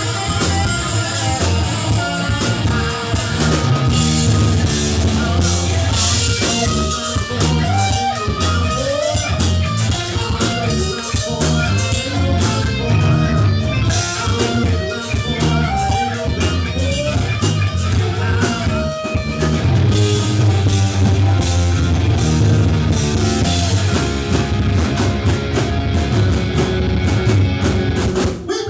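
Live rock band playing loud: electric guitar lead over drum kit and bass. The music cuts off suddenly near the end.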